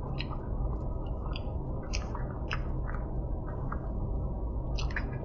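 Close mouth sounds of a person eating a forkful of macaroni and cheese: chewing with small wet clicks and smacks scattered throughout, over a steady low hum.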